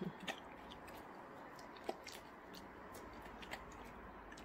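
Golden retriever chewing a treat, with faint, scattered crunchy clicks.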